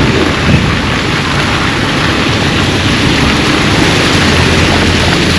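Heavy rain falling: a loud, steady hiss with a low rumble underneath.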